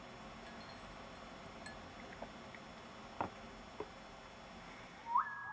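Quiet room tone with a few faint lip smacks from a kiss given close to the microphone, about two and three seconds in. Near the end a series of short rising whistled tones starts.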